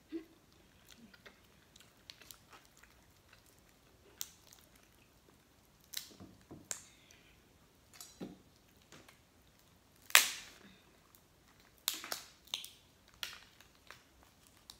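A person chewing lobster meat close to the microphone, with wet mouth smacks and short sharp clicks scattered through, the loudest about ten seconds in.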